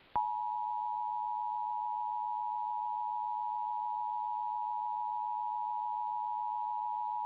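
Emergency Alert System attention signal: the steady two-tone alert of 853 Hz and 960 Hz sounded together, beginning just after the start. It signals that an emergency alert message follows, here the audio of a Required Monthly Test.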